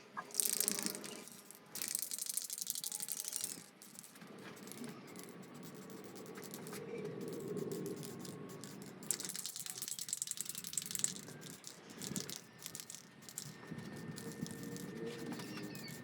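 Aerosol spray can of primer being shaken, its mixing ball rattling, with bursts of spray hiss as coats go on: about a second at the start, nearly two seconds soon after, and two seconds about nine seconds in.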